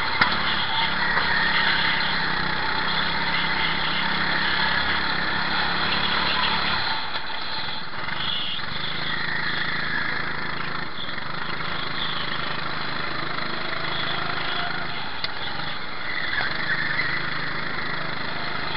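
Racing go-kart engine running hard, heard onboard from the driver's helmet camera, with other karts close by. The engine note shifts about seven seconds in and climbs again near the end.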